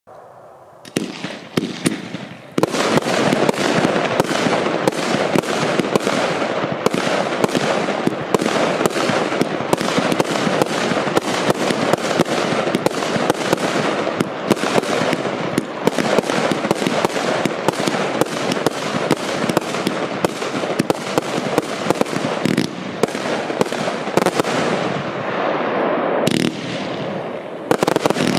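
A 130-shot consumer fireworks cake of 25/30 mm calibre firing, the first shots about a second in and a steady barrage from about two and a half seconds, several launches and aerial bursts a second overlapping into a continuous stream of bangs and pops.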